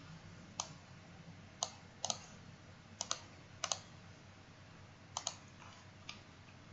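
Computer mouse clicking: about eight short, sharp clicks spread out, some in quick pairs, over a faint steady hiss.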